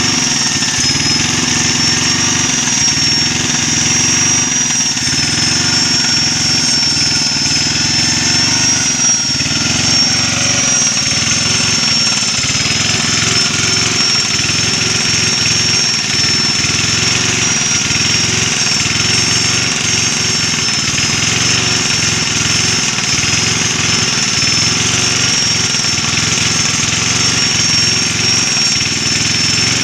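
Electric angle grinder running with a steady high whine while its disc grinds the cutters of a chainsaw chain to sharpen them, with a rough, irregular rattle underneath.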